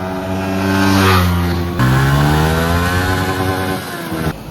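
Yamaha R15 V3 motorcycle's 155 cc single-cylinder engine running loudly through its exhaust: a steady note that drops suddenly about two seconds in, then slowly falls in pitch, breaking off briefly near the end.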